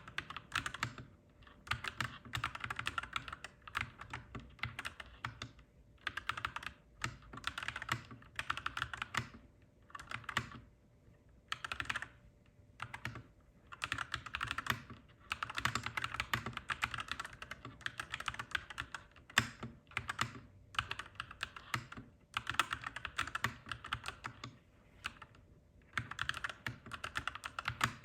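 Clacky mechanical keyboard typing: bursts of rapid keystrokes separated by short pauses, with a faint steady hum underneath.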